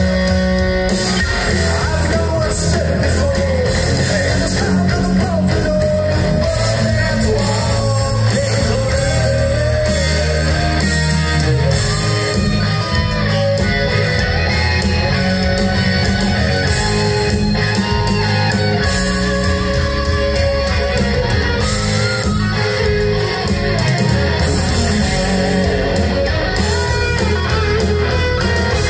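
Loud live hard rock band playing: distorted electric guitars, bass guitar and drums through a club PA.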